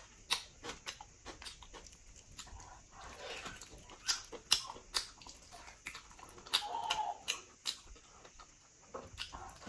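Close-miked chewing and wet mouth smacking on pork leg, with sticky clicks as the skin and meat are pulled apart by hand. The smacks come irregularly, the sharpest about four and a half seconds in.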